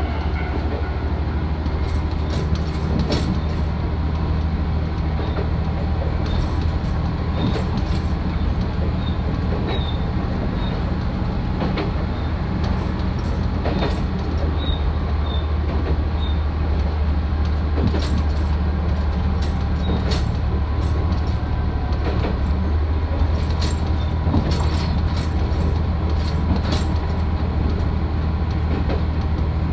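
Isumi 350-series diesel railcar running along the line: a steady low diesel engine hum under rolling noise, with irregular clicks and knocks from the wheels on the track.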